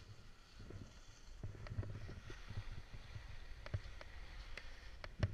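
Low wind rumble on a ski-helmet action camera's microphone, with scattered clicks and knocks from skis and poles shifting on the snow. The sharpest knock comes near the end.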